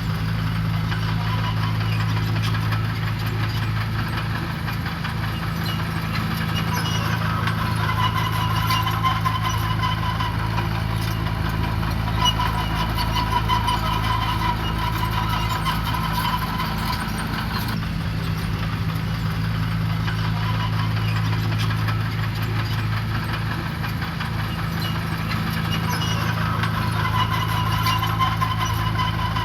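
Heavy construction machine's diesel engine running steadily, with a higher whine that comes and goes twice.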